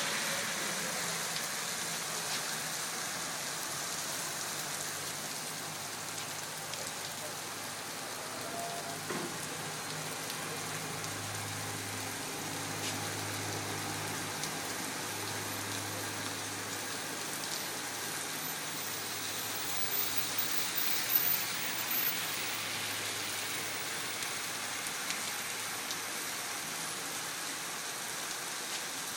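Steady rain falling, an even hiss of drops on surfaces. A faint low hum joins it through the middle, and there are a few light ticks of drops a little after two-thirds of the way in.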